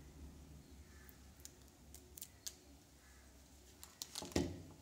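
Hands handling a smartphone: light scattered clicks and taps, then a louder knock about four seconds in, over a faint low hum.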